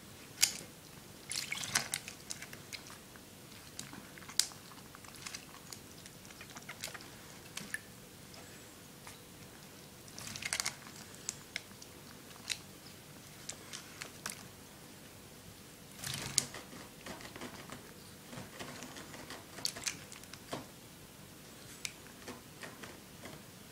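Ferrets splashing and dunking their heads in a plastic bowl of water: irregular bursts of sloshing water, with many sharp clicks scattered between them.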